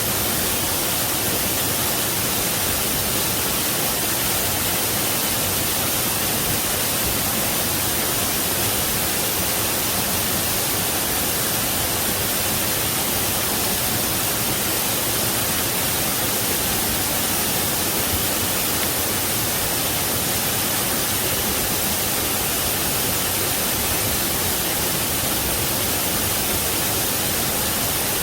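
Waterfall: a steady, unbroken rush of falling water with a bright hiss on top, unchanging throughout.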